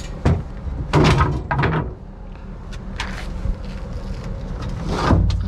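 Knocks and thumps of loose lumber being handled: short boards clunking against each other in a quick cluster, then a single heavier thump near the end.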